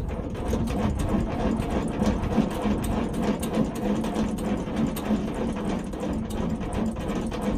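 Semi-trailer landing gear being cranked quickly by hand, its crank gearbox clicking and grinding in a fast, steady rhythm.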